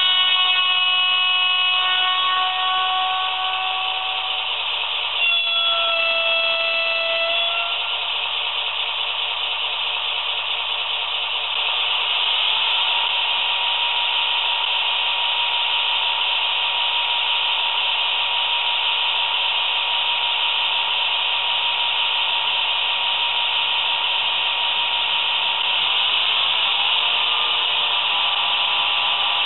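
Sound decoder of an H0-scale model of an NMBS class 55 diesel locomotive, playing through its small loudspeaker. Two blasts of a multi-tone horn, a long one and then a shorter one about five seconds in, sound over a steady hissing diesel engine sound. About twelve seconds in the engine sound grows louder with a steady whine, and its pitch shifts up near the end.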